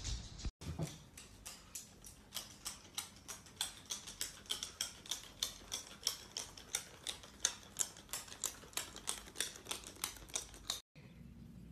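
Steady run of light, sharp clicks on a hard tile floor, about three to four a second, from a small toy chick moving across the floor.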